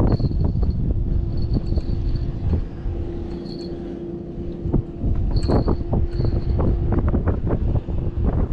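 Wind buffeting an action camera's microphone in irregular gusts, easing for a couple of seconds in the middle, over a steady faint hum.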